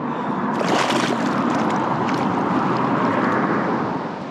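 Steady rushing of wind on the microphone and water moving around a wader standing in a shallow flooded lake, with a brief stronger rush about half a second in.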